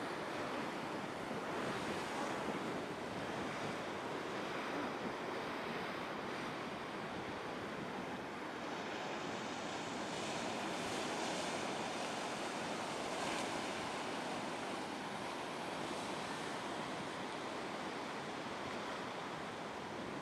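Storm surf breaking: a steady, continuous wash of crashing waves.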